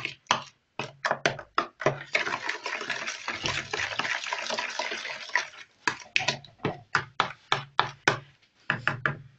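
A metal spoon stirring salty pickling liquid in a plastic bowl: quick repeated clicks and scrapes against the bowl, with a stretch of continuous swishing liquid for a few seconds in the middle.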